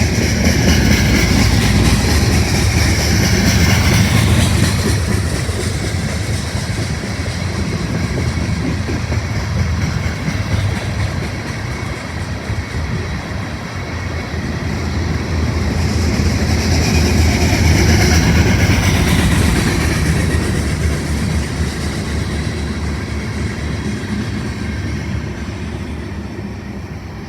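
Loaded Union Pacific rock train's freight cars rolling past, a steady rumble of steel wheels on rail with some clickety-clack. It swells louder twice, near the start and again about two-thirds through, then fades toward the end.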